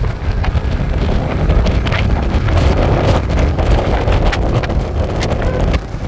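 Strong wind buffeting the microphone: a heavy, uneven low rumble that gusts louder in the middle.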